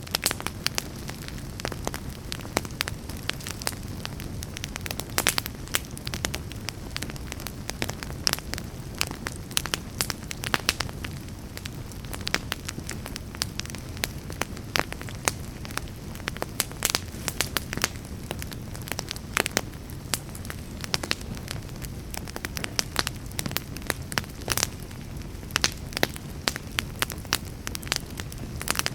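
Wood fire burning in a fireplace: a steady low rumble of flames under frequent, irregular crackles and sharp pops.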